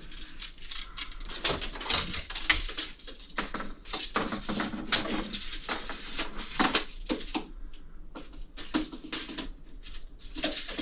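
Irregular small clicks, taps and scrapes of a tape measure being worked down inside a wall cavity, with hands handling it.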